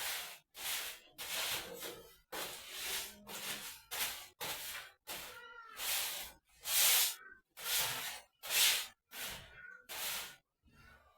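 Floor being cleaned by hand: repeated swishing strokes across a hard kitchen floor, a little more than one a second, a few with a faint squeak.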